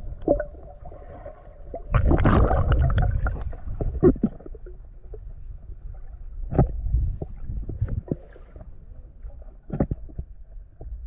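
Muffled water sloshing and gurgling picked up by a GoPro in the water, with scattered knocks and a louder rush of water about two seconds in.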